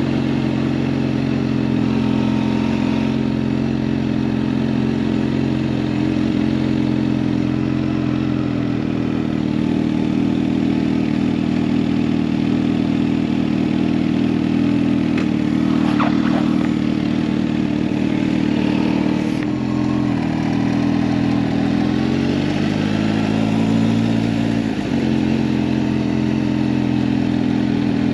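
Kawasaki Ninja H2 SX's supercharged inline-four engine running at low speed with a steady hum. About two-thirds of the way through its pitch dips, then rises for a few seconds and drops back to the steady running.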